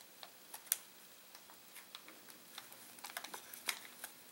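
Scattered light clicks and ticks of a drone battery pack being worked apart with nippers, cutting a lithium cell's connection tab free of the circuit board. A sharper click comes about three-quarters of a second in, and a quick run of clicks comes near the end.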